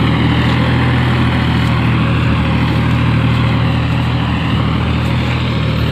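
Farm tractor's diesel engine running steadily at an even speed.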